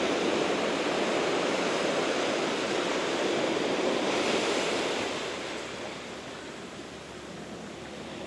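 Small surf waves breaking and washing up over the sand right at the feet, the wash easing off about five seconds in.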